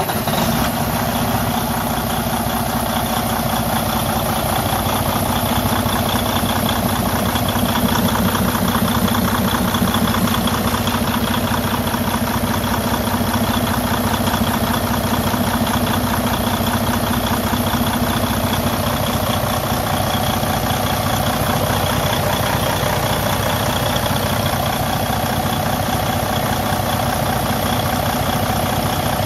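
Detroit DD15 inline-six diesel engine idling steadily just after a start. This is an engine that the owner diagnoses with high blow-by pressure from a compression leak past damaged piston rings.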